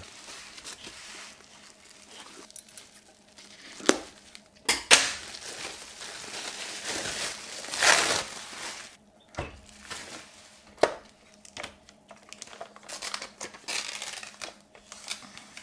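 Plastic bubble wrap and bag crinkling and rustling as a small photo printer is unwrapped by hand, with a few sharp knocks about 4, 5, 9 and 11 seconds in.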